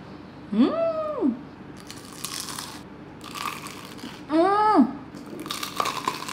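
Crunchy bites into a fried corn dog and crispy-coated donuts, with several clusters of crisp crunches. Two short pitched sounds that rise, hold and fall come about half a second in and again past the middle, and are the loudest parts.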